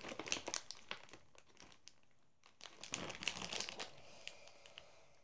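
Faint crinkling of a plastic candy bag as a hand rummages in it and pulls out a wrapped sweet, in two spells of crackling with a short lull between.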